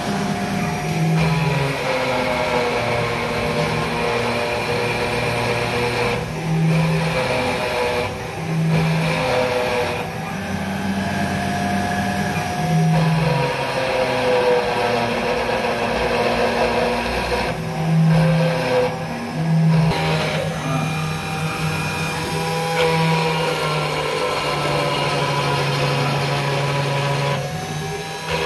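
CNC stone engraver at work: its high-speed spindle drives a small bit into a black granite slab, cutting lettering. The axis motors whine in held tones that step to a new pitch every second or two as the head moves between strokes.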